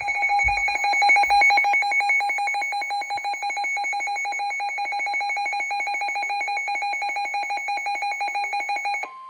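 Emergency Alert System attention signal: a loud, harsh, steady alert tone that cuts off abruptly about nine seconds in, followed by a short single beep right at the end.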